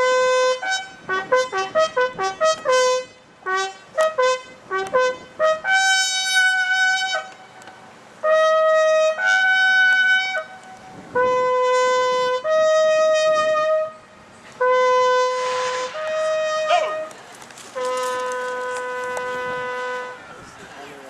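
A solo bugle call: a run of quick short notes, then a series of long held notes with pauses between them, the last note fading out about 20 seconds in.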